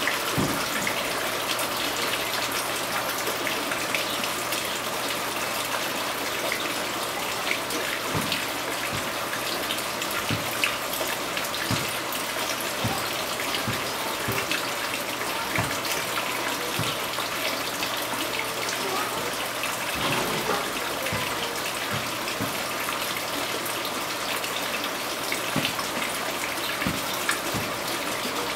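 A steady rushing noise like running water, with scattered soft taps and knocks.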